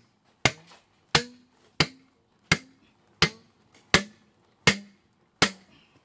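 Hammer driving steel shims between a foundation pier and the concrete slab. Eight sharp metal strikes come about every three quarters of a second, each with a short ring, as the shims are tightened to secure the pier.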